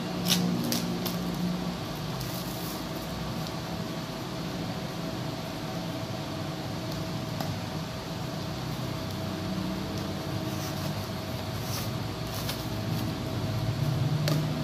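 A small cardboard box and its plastic packaging being handled and opened by hand: scattered rustles and clicks, the sharpest about a third of a second in, over a steady background hum.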